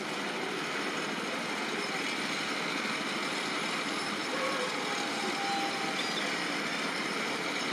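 Steady outdoor background noise: an even, unchanging rush with a few faint short calls over it.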